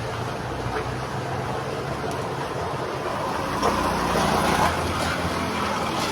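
Road traffic: a steady low engine rumble, with a vehicle passing louder from about three and a half to five seconds in.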